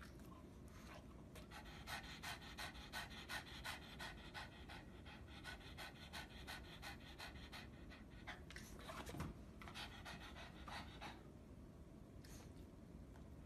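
Pug panting with fast, even breaths, about three or four a second, fading away near the end.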